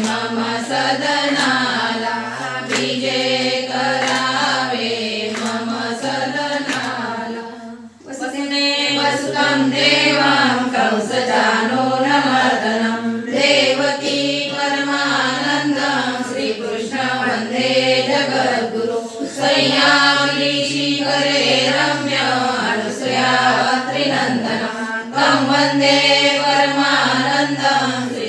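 A group of voices chanting a devotional hymn in unison, with a short break about eight seconds in.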